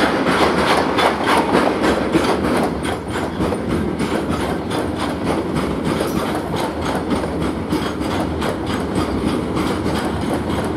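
Freight train of bogie covered hopper wagons rolling past, its wheels clicking in a steady, rapid clickety-clack over the rail joints.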